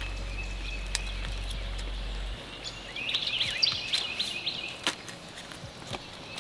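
Outdoor riverside ambience with a songbird singing a quick run of repeated chirps about three seconds in, over a low steady hum that stops a little earlier. A few sharp clicks are scattered through it.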